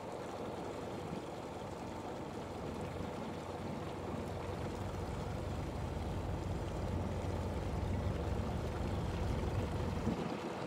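Fishing boat engine running steadily, with water rushing along the hull; its low rumble grows louder in the second half.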